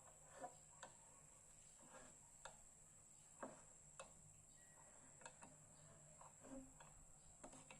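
Near silence with a faint steady hiss, broken by about a dozen light, irregularly spaced clicks and taps.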